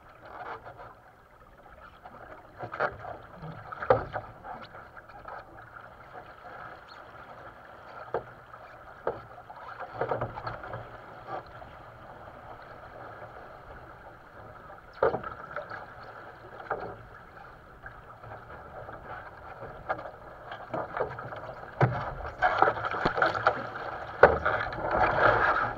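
Water rushing and slapping against the hull of a sailing dinghy under way, with scattered sharp splashes and knocks. The splashing grows louder and busier near the end.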